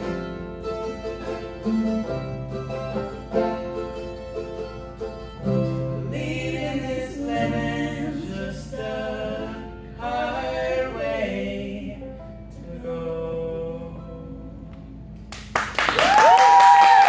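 Live acoustic band playing the closing bars of a song: a woman singing over acoustic guitar and other plucked strings, ending on a quieter held note. About fifteen seconds in the audience breaks into loud applause with a rising-and-falling cheer.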